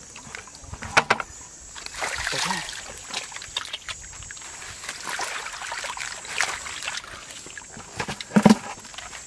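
Hands and a plastic basket sloshing and scooping through shallow muddy water, with irregular splashes; two sharp splashes stand out, about a second in and near the end.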